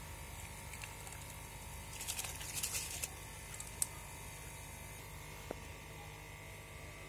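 Rice poured from a steel bowl into a pot of bubbling water: a short pattering splash about two seconds in, then a couple of light clicks of the bowl, over a steady low hum.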